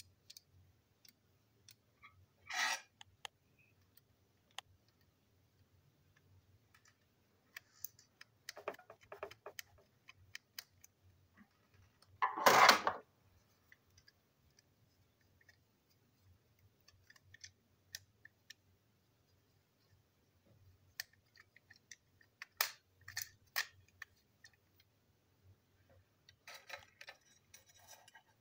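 Small plastic toy-train parts handled and worked apart by hand: scattered light clicks and short plastic scrapes, with a louder scrape lasting about a second near the middle.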